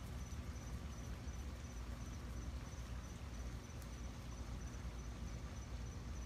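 An insect, likely a cricket, chirping steadily in a high thin pitch about three times a second, over a steady low rumble.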